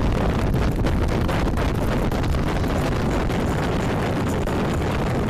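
Steady, loud, low rumbling noise without breaks or pitch.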